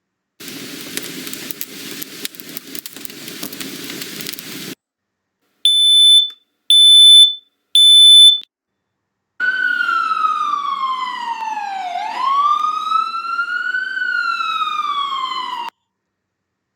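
A crackling noise with a low rumble for about four seconds, then a smoke alarm giving three high beeps about a second apart in the evacuation pattern. Then an emergency vehicle siren wails, its pitch falling, rising and falling again.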